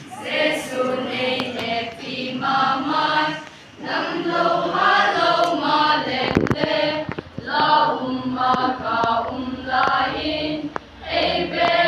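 A group of children singing together in unison, in short phrases with brief breaks between them. A single knock sounds about six seconds in.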